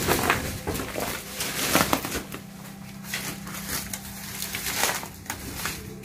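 Footsteps and rustling through dry leaf litter and undergrowth, with twigs cracking: a quick run of sharp cracks in the first two seconds, then quieter shuffling with a few more near the end. A steady low hum runs underneath.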